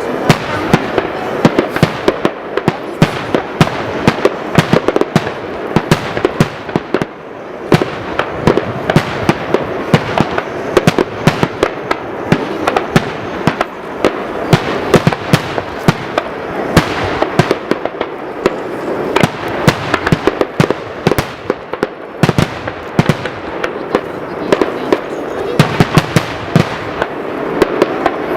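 Aerial fireworks bursting in a dense, continuous barrage: many sharp bangs and crackles per second over a steady rumble, with no real pause.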